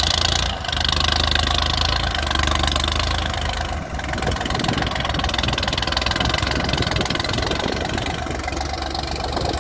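New Holland 3630 tractor's three-cylinder diesel engine running steadily under load as its front dozer blade pushes soil, heard through a modified silencer.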